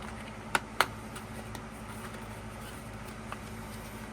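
Two short clicks about half a second in, with a few fainter ticks after, from a small cardboard album box being handled, over a steady low hum.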